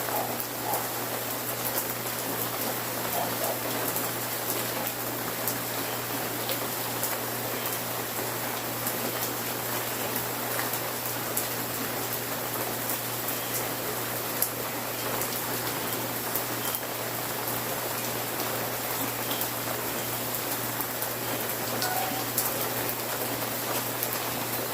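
Steady rain falling: an even hiss with many scattered sharp ticks of drops hitting surfaces, over a faint steady low hum.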